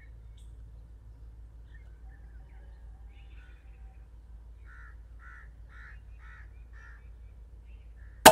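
A bird calls five times, about two calls a second, over a faint steady low hum; then, right at the end, one sharp, loud shot from a P15 air rifle.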